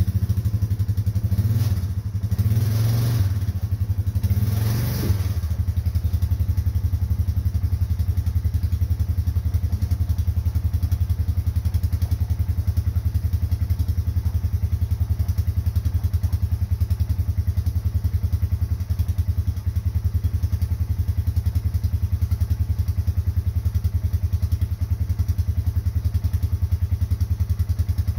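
Car engine idling steadily just after starting, with a few louder surges in the first five seconds.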